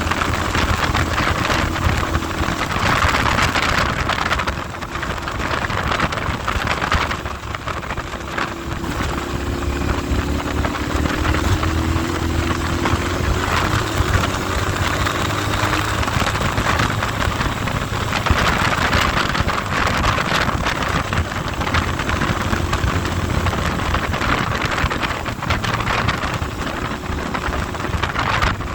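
Heavy wind noise buffeting the microphone over a vehicle engine running under way, its pitch shifting a little between about 8 and 16 seconds in.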